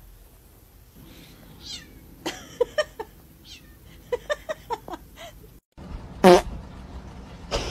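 A domestic cat giving a run of short, quick meows, then a second run a second or so later. After a short gap comes a louder, lower sound falling in pitch, and a sharp knock near the end.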